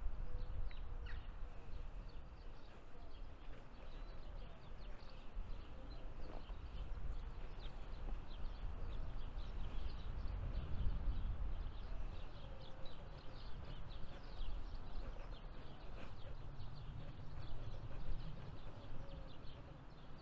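Birds chirping and singing throughout, many short chirps over a low, uneven rumble of wind on the microphone.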